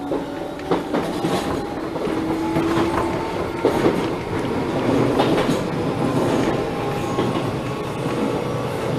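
Enshu Railway 1000-series electric train running, heard from inside the front of the car: a faint whine that climbs slowly in pitch as the train gathers speed, over steady wheel rumble and scattered clicks of the wheels over rail joints.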